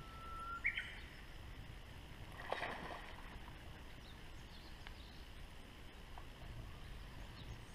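Faint outdoor background with a few bird calls: a short whistled note that jumps up into a chirp at the start, scattered small chirps later, and a brief louder sound about two and a half seconds in.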